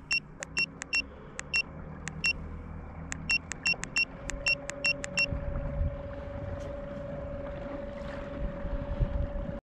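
A run of about sixteen short, high electronic beeps, one per button press, as the Garmin Force Kraken trolling motor's propeller speed is stepped up. From about four seconds in, the trolling motor runs with a steady whine over a low rumble of water. The sound cuts off abruptly just before the end.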